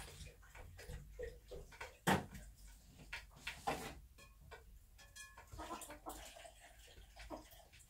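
Bantam hen sitting in a hay-lined nest box: faint rustling and scattered soft clicks, with one sharper click about two seconds in and a faint, brief tonal call near the middle.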